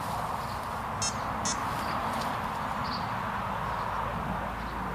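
Open-air waterside ambience: a steady hiss with short, high chirps every second or so, and two sharper calls, about a second and a second and a half in.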